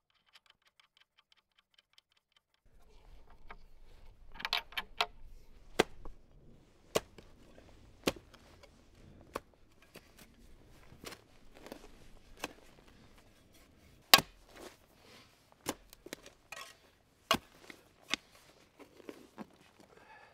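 A spade digging into turf and soil: repeated sharp knocks and scrapes, roughly one a second, as the blade is driven in and the earth is levered out. The first couple of seconds are nearly quiet, with a few faint clicks.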